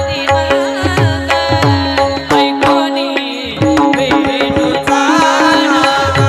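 Indian devotional music: tabla strokes, the bass drum's low pitch sliding down after each stroke, under a steady held drone, with an ornamented melodic line bending between notes above them.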